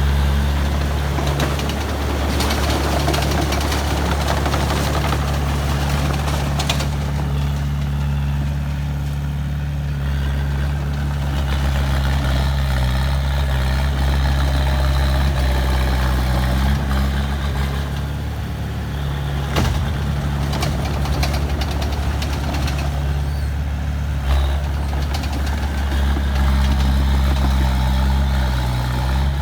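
Heavy diesel engine of an earthmoving machine running steadily with a low drone, broken by a few sharp clanks, the loudest about twenty seconds in.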